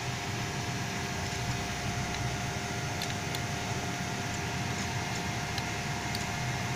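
Steady hum with a constant faint whine from a hoist motor running slowly at 12.5 Hz on a variable-frequency drive, together with the control cabinet's cooling fan. A few faint clicks come about three seconds in and near the end as roller-arm limit switch levers are pressed.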